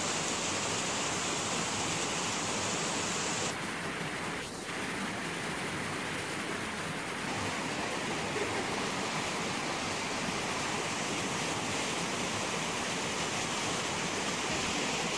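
Steady rush of water over the rocks of a shallow jungle stream.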